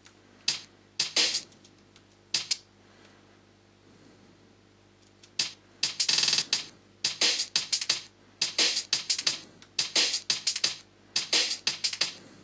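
Drum hits from a sliced breakbeat sample: a few single kick and snare hits in the first seconds, then from about five seconds in the pattern plays back as a fast repeating breakbeat loop of kick and snare hits at 175 BPM.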